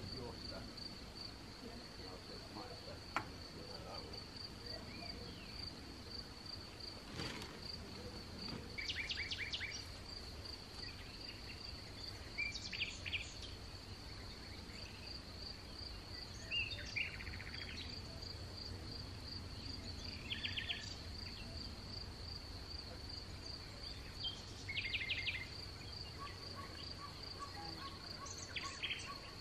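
A cricket chirping in a steady, evenly pulsing high trill, with a songbird singing short, rapid phrases every few seconds.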